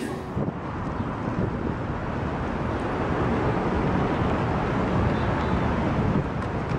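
Wind rumbling on the camera microphone over steady outdoor road-traffic noise.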